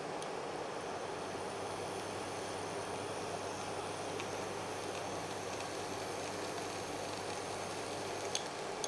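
Steady rushing noise of a pan frying on the stove as cabbage, egg and drumstick leaves cook, with a faint click near the end.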